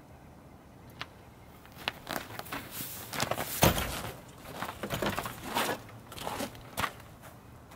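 Straps and a fabric cover being handled on a sled strapped to a hitch-mounted carrier: irregular rustling, scraping and clicks, with one heavier thump about three and a half seconds in.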